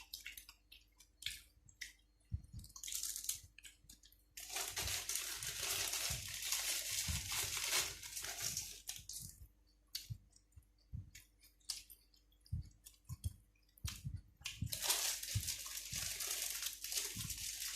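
Close-up chewing and crunching of food: scattered mouth clicks and soft thuds, with two longer spells of dense crunching about four seconds in and again near the end.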